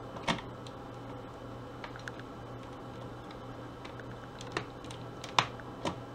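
Small flathead screwdriver prying at the plastic retaining tabs of a Dell laptop keyboard: scattered sharp plastic clicks and ticks, one just after the start and a cluster of louder ones near the end.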